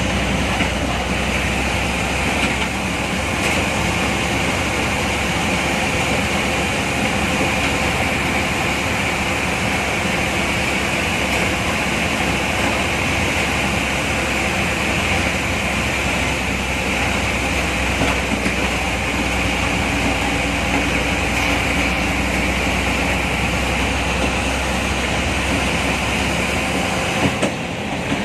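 Bus engine running steadily while the bus drives along, heard from inside the driver's cabin, with tyre and road noise mixed in.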